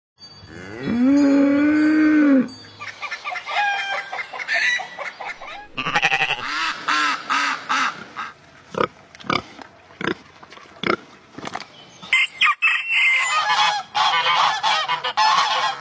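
Geese honking: one long, drawn-out honk near the start, then a series of shorter honks and calls, with several birds calling over each other near the end.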